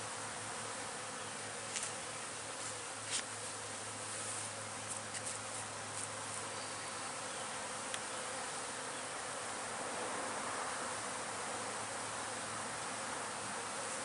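Honeybees buzzing around an opened hive in a steady hum, with a few light knocks partway through as a wooden frame is handled.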